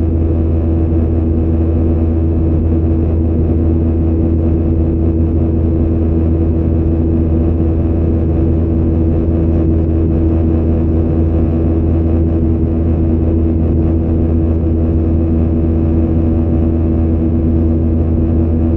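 Cabin-interior roar of a Boeing 737-900ER's CFM56-7B turbofan engines at climb power. It is a loud, unchanging drone with a deep hum and a couple of steady tones above it.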